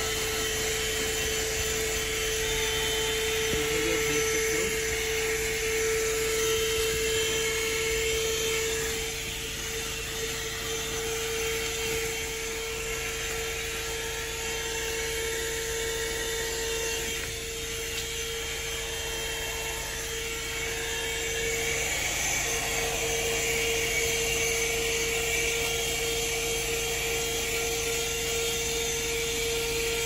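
Handheld 150-watt 12-volt car vacuum cleaner running steadily, a high motor whine over the rush of suction as its nozzle works over a dusty floor mat.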